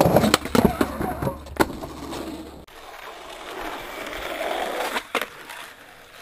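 Skateboard wheels rolling over pavement, with a run of sharp clacks in the first couple of seconds. After a sudden change about two and a half seconds in, the wheels roll more smoothly on tarmac, and there is one more sharp clack near the end.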